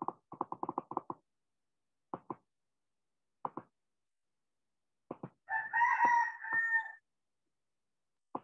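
Computer mouse clicking in quick succession, then a few single clicks, as the column width is stepped down on a spinner. About five and a half seconds in, a rooster crows in the background for about a second and a half, the loudest sound here.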